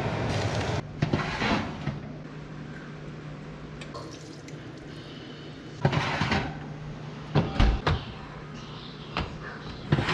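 Oven door opening and a metal baking tray being slid out along the wire oven rack: a rattle about six seconds in, then metallic clanks and one heavy knock, with a few lighter clicks near the end, over a steady low hum. A loud hiss at the very start cuts off within the first second.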